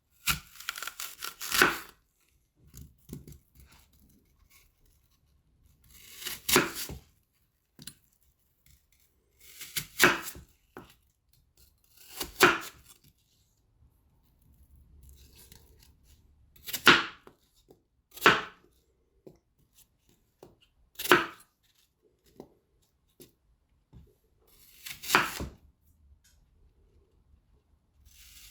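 Knife cutting an apple on a chopping board: about eight separate slicing cuts, each a short crunch, a few seconds apart.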